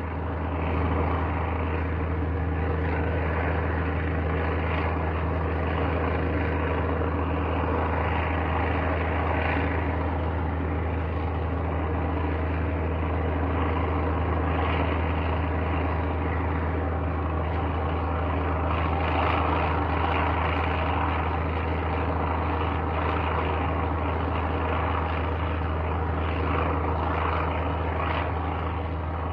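Airplane in flight: a steady engine drone with a strong deep hum and a constant wash of air noise, unchanging throughout.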